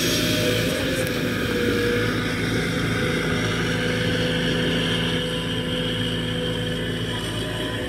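JCB JS200SC crawler excavator's diesel engine running steadily while it digs swamp mud and weeds, with a steady whine over the engine note.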